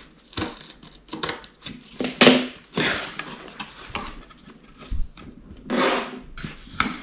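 Scissors snipping and sliding through packing tape on a cardboard box, with irregular clicks and short scraping rustles of cardboard as the end flap is worked open; the loudest scrapes come about two seconds in and again near six seconds.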